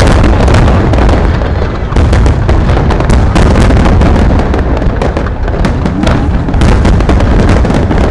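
Fireworks display: a dense, continuous barrage of sharp bangs and crackles over a heavy low rumble.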